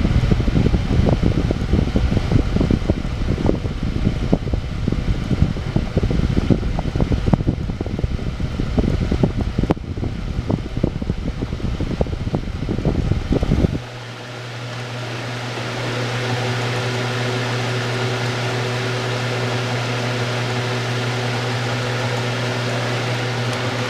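2008 Massey 9-inch box fan (MBF-909) running on high with a steady electric motor hum and rush of air. For the first half a rough rattling runs over it, stopping suddenly about halfway through.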